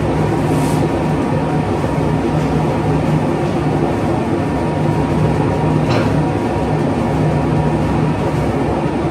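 Motor-driven carpet-beating machine running with a steady mechanical rumble and a low hum.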